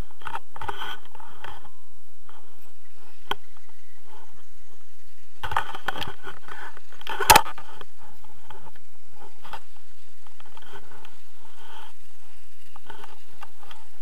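Padded suit and harness handled and rubbing against the camera, making irregular scraping and rustling bursts, with a sharp knock a little over seven seconds in.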